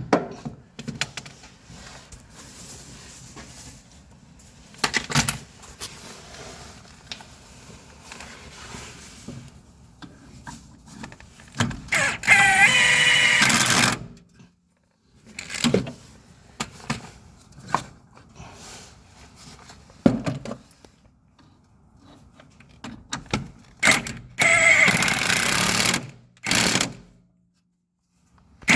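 Two bursts of a power tool, each about two seconds long, one near the middle and one near the end, amid scattered clinks and knocks of hand tools on metal suspension parts.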